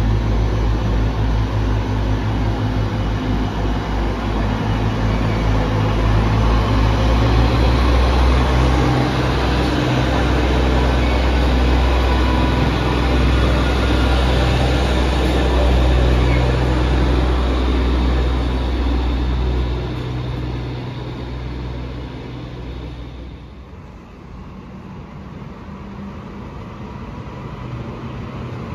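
HŽ 7123-series RegioSwinger diesel multiple unit pulling out and accelerating away, its diesel engines running with a deep drone that steps in pitch as it gathers speed. The drone fades after about twenty seconds as the train leaves. Near the end a second train sound rises as a locomotive approaches.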